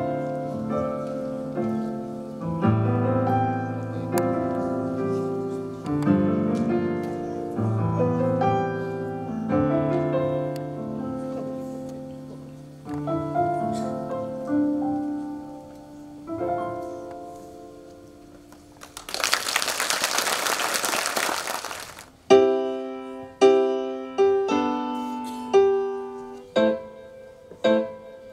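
Piano playing slow, sustained chords that die away over the first two-thirds, followed by a few seconds of applause. Then a grand piano starts a new piece with loud struck chords, each left to ring and fade, about one a second.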